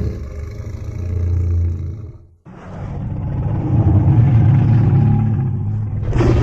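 Godzilla-style monster roar sound effects. The deep tail of one roar cuts off abruptly about two and a half seconds in. After a moment's silence, a second long, deep roar builds up and holds, and another starts just at the end.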